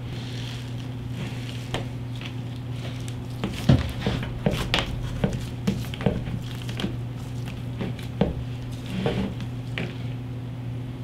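Wet, squishy handling noises from greased wires and pull-line being drawn through a cloth-wrapped motorcycle handlebar by gloved hands, with a scattering of light knocks and clicks from about three to nine seconds in. A steady low hum runs underneath.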